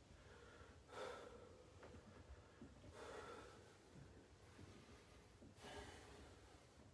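Faint breathing of a man doing bench dips, three soft breaths a couple of seconds apart, against near silence.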